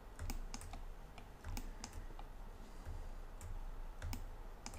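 Scattered, irregular clicks and taps of a computer mouse and keyboard, about a dozen in all, some with a soft low knock under them.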